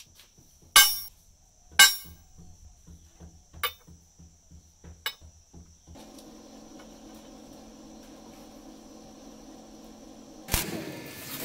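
Sharp metallic clinks as small steel pieces are set down on a steel plate: two loud ones about a second apart, then a few lighter ones. Near the end a stick welder's arc strikes with a loud crackling hiss.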